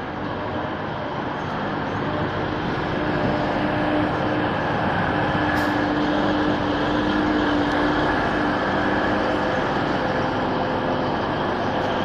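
Class 185 diesel multiple unit running at the platform, its diesel engines making a steady drone with a few held tones that swell slightly over the first few seconds.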